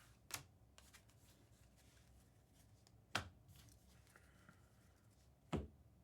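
Trading cards being handled by hand: three short taps or snaps, near the start, in the middle and near the end, over an otherwise quiet room.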